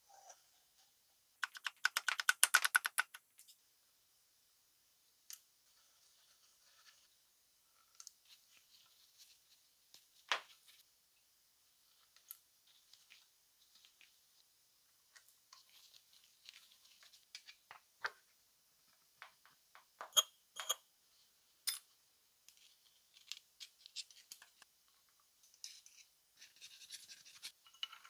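Hand reassembly of a Keyang PHD-38 hammer drill: scattered small clicks, taps and scrapes of metal parts and a hex key against its aluminium housing, with a quick run of rapid clicks about two seconds in.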